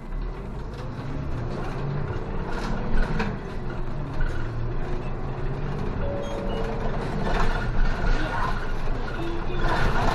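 City bus engine pulling away from a stop and accelerating, heard from inside the cabin at the front; the engine note rises and falls as it works up through its speeds.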